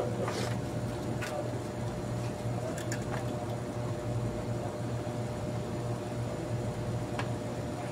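Steady machine hum with a few light clicks and knocks from a car's metal condenser and radiator assembly being handled and set in place.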